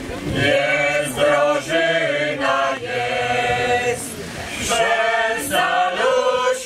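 Mixed folk choir of men and women singing a Polish folk song a cappella, holding long sung notes, with a short break about four seconds in.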